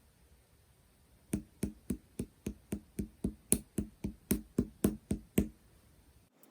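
A steady run of about sixteen even taps, close to four a second, starting about a second in and stopping near the end.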